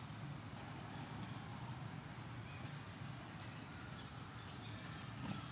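Steady, high-pitched insect chorus droning over a low background rumble.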